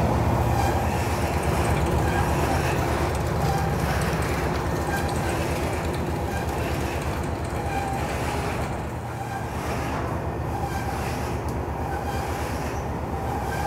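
Continuous machinery din of a fishing trawler's below-deck fish factory: processing machinery and the ship running with a steady, low, rattling clatter.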